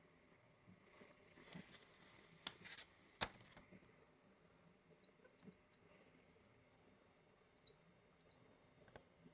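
Mostly quiet, with a few faint scattered clicks and short high squeaks in small clusters, from the blade of a handheld ultrasonic cutter working through material.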